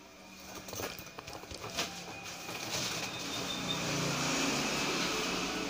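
A few faint clicks, then a motor vehicle going by: a rushing noise with a low hum that builds over a couple of seconds and starts to fade near the end.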